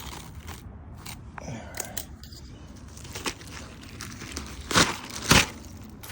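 Handling and movement noise on an asphalt shingle roof: light scraping and crackling, then two sharp knocks about half a second apart near the end.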